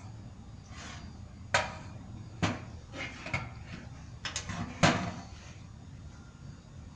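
Hand work on an RV's gas tank and fuel lines: about half a dozen sharp knocks and clatters of parts and tools, the loudest near the end, over a low steady hum.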